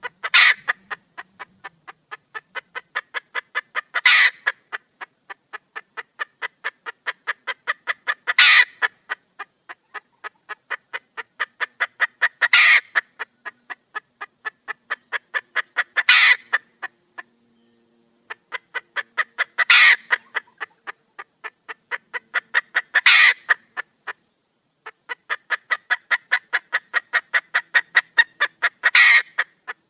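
Junglefowl hen calling for a mate: runs of quick, evenly spaced notes that grow louder, each ending in a loud, longer call, repeating about every four seconds.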